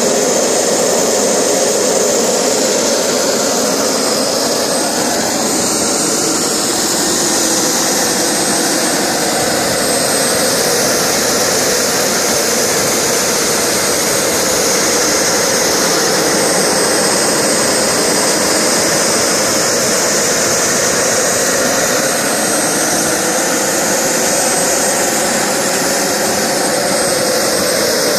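Small gas turbine of a PST Jets turbine power generator running steadily at speed while driving its alternator and generating power: a loud, even jet roar with a thin high whine on top.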